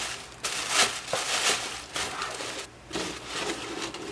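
Rustling and crinkling of paper packaging being handled, in several short bursts.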